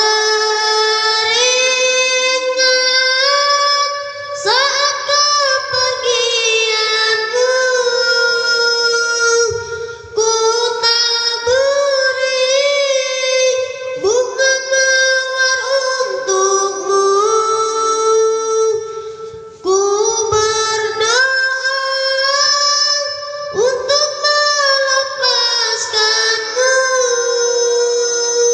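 A child's solo voice singing a syair, a mourning poem for a dead father, in long, ornamented, held phrases with short breaks for breath every few seconds, with no instruments heard.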